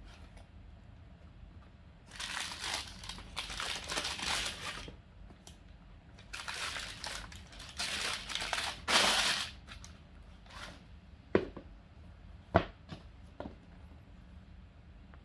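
Paper packaging crinkling and rustling in two long stretches as a shoebox is unpacked, followed by a few sharp knocks or taps near the end.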